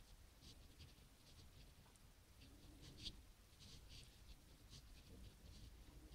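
Faint, scratchy swishes of a crochet hook drawing cotton yarn through stitches as double crochets are worked, coming irregularly a couple of times a second.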